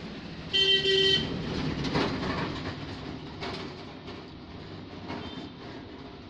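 A vehicle horn sounds twice in quick succession about half a second in, over a steady rumble of passing traffic, followed by a single knock about two seconds in.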